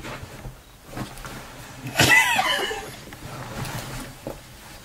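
A brief, loud, high-pitched vocal call about two seconds in, rising then falling in pitch, over faint rustling.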